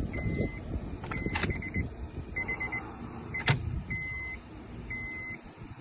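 Repeated high electronic beeps while a 2006 Honda Civic key is being programmed. The beeps come as single half-second tones and quick runs of four. Two sharp clicks sound in the middle, one about a second and a half in and a louder one about three and a half seconds in.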